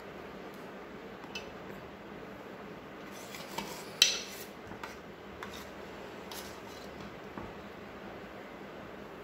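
Steel spoon clinking and scraping against steel cookware as thick milk-fudge mixture is spooned into a dish: a few light clinks, the loudest about four seconds in.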